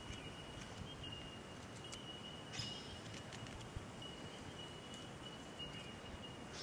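A knife shaving a wooden stick, with a few faint short scrapes. A thin high steady whine breaks off and comes back in the background.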